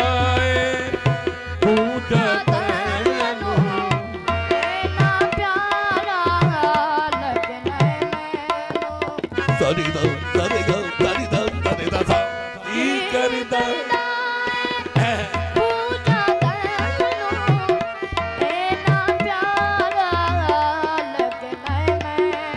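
Tabla drumming with a harmonium and singing, played loud through a PA system.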